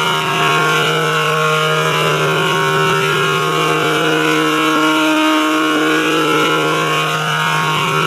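A steady electronic drone of several held tones sounding together, unbroken and even in level, with faint wavering tones above.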